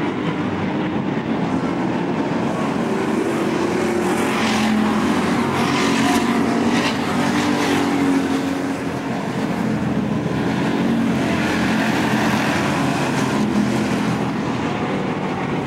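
Pro-street stock cars racing in a pack on an oval track: many engines running hard together in one continuous, loud engine noise that wavers in pitch as the cars go round.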